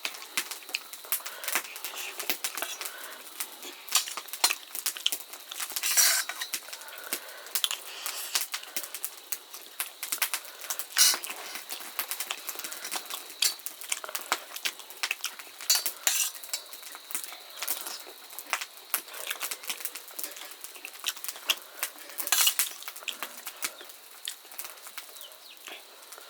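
Spoons and forks clinking and scraping against dishes as people eat, in many irregular small clicks with a few louder strikes.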